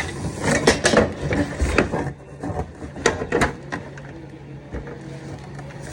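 Scattered knocks and clicks of hands-on fitting work on an air conditioner unit, over a steady low hum.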